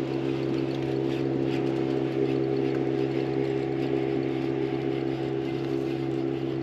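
A boat's motor running steadily with a constant, even hum that holds one pitch throughout.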